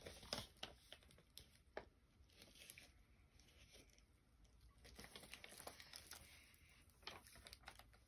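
Faint rustling and crinkling of paper pages being held up and handled, with scattered soft clicks.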